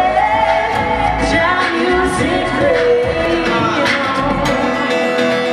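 A woman singing long held notes, accompanied by a strummed acoustic guitar.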